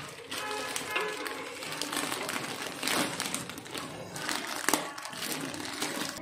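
Thin plastic bread bag crinkling and rustling as hands reach in and take out slices, a run of sharp crackles.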